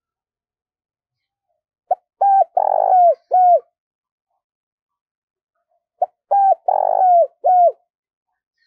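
Spotted dove cooing: two phrases about four seconds apart, each a short lead note followed by a few louder coos and a final coo that drops in pitch.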